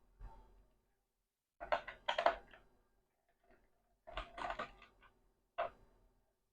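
Clicks and light rattling of a screwdriver working screws out of a laptop's plastic bottom panel, in short bursts, the loudest about two seconds in and a single sharp click near the end.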